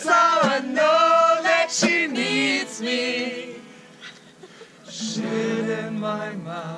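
People singing a song together. The singing dips briefly about four seconds in, then carries on.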